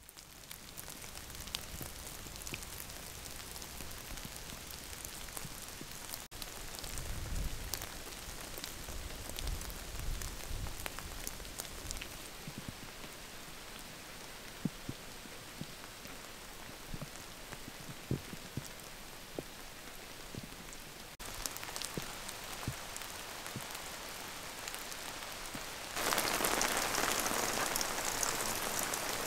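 Steady drizzle falling, an even hiss with scattered drops ticking close by; it grows louder for the last few seconds.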